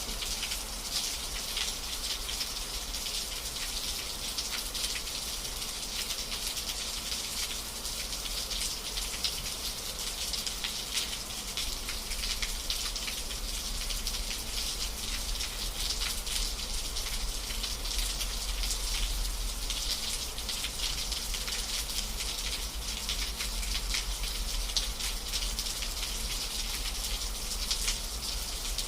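Steady rain with dense pattering drops, over a low steady rumble.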